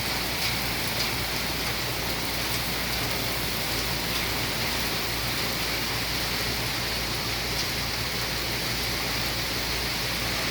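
Steady thunderstorm rain pouring down, with a few single drops tapping close to the microphone now and then.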